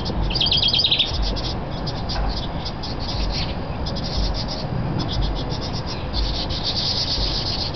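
House wren scolding chatter: runs of fast, harsh rasping notes repeated again and again, the alarm fuss of a parent warning a person off its nest. About half a second in there is a short burst of clearer, higher notes.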